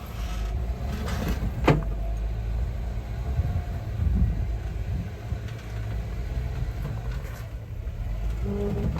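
Off-road vehicle engine running at low revs, a steady low rumble, with one sharp knock a little under two seconds in.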